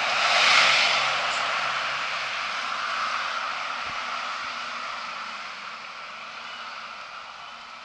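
City bus passing close by, its engine and tyre noise loudest about half a second in, then fading steadily as it moves off.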